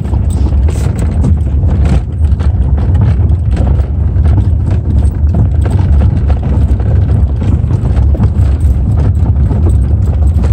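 Car creeping down a rough dirt and rock trail: a steady low rumble from the tyres and body, with frequent knocks and rattles as the suspension jolts over rocks and ruts.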